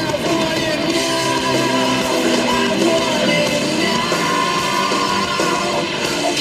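Rock song with singing and guitar.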